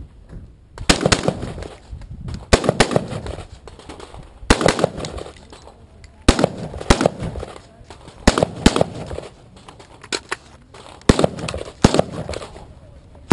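AR-15 rifles fired in quick double taps by shooters in turn down a firing line. Pairs of sharp shots come about every one and a half to two seconds.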